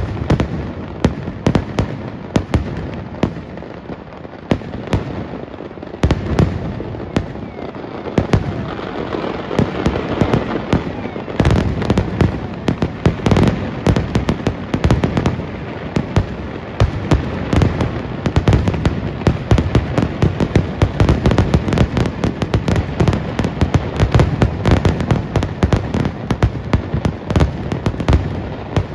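Kerala vedikkettu fireworks barrage: aerial shells and crackers going off in a rapid, unbroken string of bangs, growing denser about a third of the way in.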